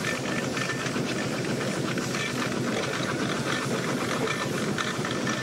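Steam traction engine running as it drives slowly along, a steady mix of fine mechanical clatter and steam hiss.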